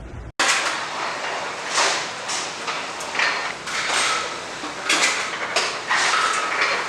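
A busy clatter of knocks and rattles over steady room noise, starting abruptly after a brief dropout about a third of a second in.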